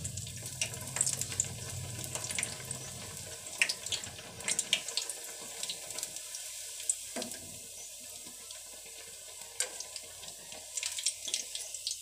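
Bread chops deep-frying in hot oil in a kadai: a steady sizzle dotted with crackling pops, with a knock on the pan about seven seconds in.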